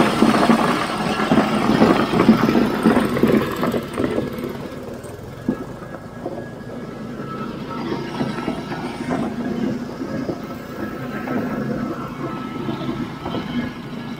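Ice crusher driven by a small petrol engine, grinding block ice into crushed ice. The crunching is loudest for about the first four seconds, then the machine runs on more quietly.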